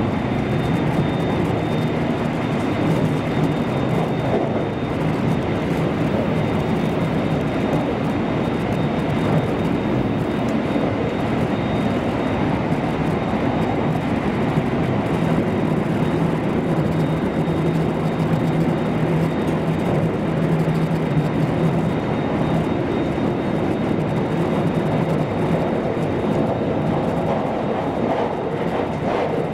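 Interior running noise of a JR West Kobe Line Special Rapid electric train in motion: a steady rumble of wheels on rail with a low hum underneath.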